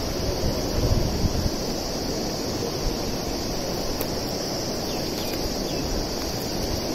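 Wind buffeting the microphone, heaviest in the first second and a half, over the steady rush of river water and a constant high insect drone.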